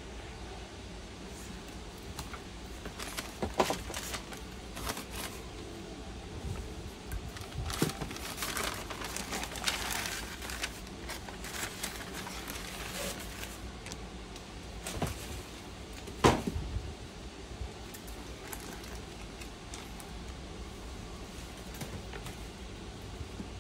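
Cardboard shoebox being opened and handled, with tissue paper rustling and crinkling as it is folded back, heaviest about a third of the way in. Scattered knocks from the box and sneakers being moved and set down, the loudest near the start and about two-thirds through.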